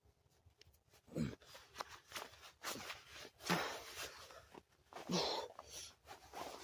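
Cloth rustling as a man binds a white rag around his bleeding hand, with three short grunts that drop in pitch, about a second in, midway and about five seconds in.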